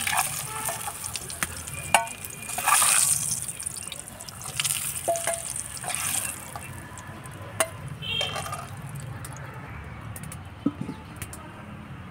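Oil sizzling around whole eggs frying in a pan, while a steel slotted skimmer clinks and scrapes against the pan and bowl as the eggs are lifted out. There are a few sharp metal clicks, and the sizzle dies down about halfway through as the pan empties.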